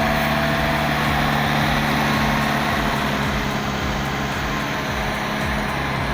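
Diesel engine of an LKT 81 Turbo forestry skidder running steadily.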